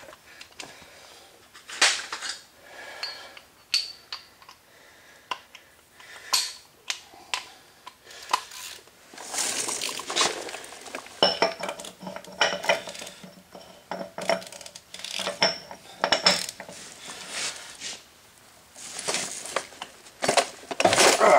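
Metal hand tools clinking and clicking at a front wheel hub: a socket on an extension being fitted onto the wheel bearing adjusting nut and turned back about a quarter turn to ease the bearing preload. Scattered sharp clicks, some with a brief metallic ring.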